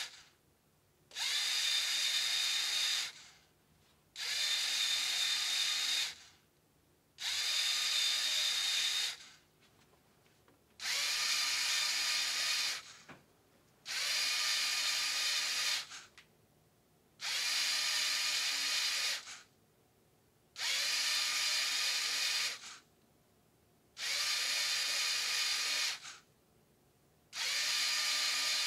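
Small electric motor whirring through the gear train and positive-motion cams of a LEGO Technic mechanical 8-segment display, with a steady high whine. It runs for about two seconds at a time and stops for a second or so between runs, each run stepping the display on to the next digit.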